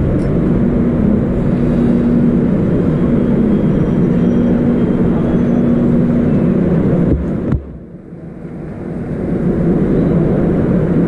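Passenger train running, a steady loud rumble with a low hum through the first half. About seven and a half seconds in the sound cuts off abruptly, then builds back up over a couple of seconds.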